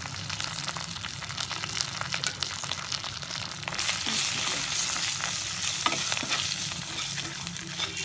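Spice masala with curry leaves and dried chilies sizzling and crackling in hot oil in a pan while being stirred; the sizzle grows louder about four seconds in, then eases near the end.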